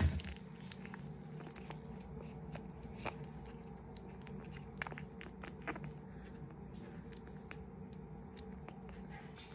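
Soft, scattered wet clicks and smacks from a two-week-old pug puppy's mouth, licking and mouthing close to the microphone, over a faint steady low hum.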